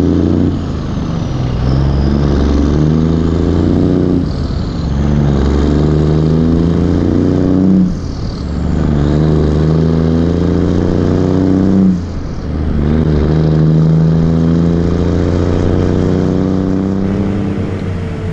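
New Holland B95 backhoe's diesel engine running under load while digging, its note dipping and recovering about every four seconds.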